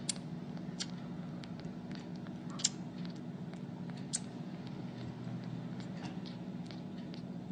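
Very young Himalayan kitten suckling at a nursing bottle: scattered small wet clicks and smacks, a few louder ones, over a steady low background hum.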